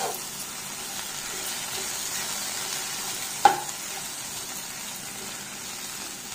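Potato sticks sizzling in oil in a kadhai over a low flame while a slotted metal spatula stirs them, with a sharp knock of the spatula on the pan about three and a half seconds in.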